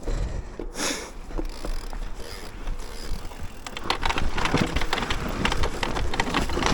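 Electric mountain bike riding a rough dirt trail: tyre noise with quick clattering and rattling from the bike that gets busier and louder about four seconds in, with wind on the microphone.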